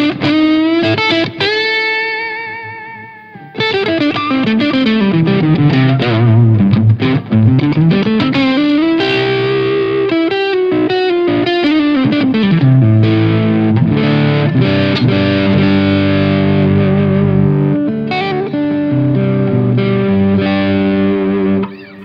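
Electric guitar played through a NUX Recto Distortion pedal set to high gain, with the guitar's volume knob turned down to clean the tone up for bluesy playing. A held note with vibrato, then long notes sliding down and back up, another held note, and a run of notes and chords that stops shortly before the end.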